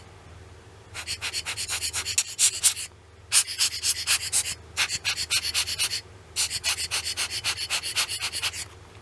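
Hand-squeezed rubber air blower puffing quick hissy bursts of air, about eight a second, in four runs with short pauses between, blowing dust off and around an exposed camera image sensor.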